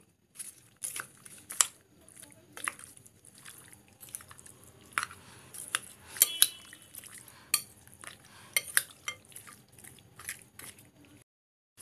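A metal spoon clinking and scraping against a bowl while mixing raw chicken gizzards and livers with spice pastes: irregular sharp clicks, a few every second. It cuts off suddenly near the end.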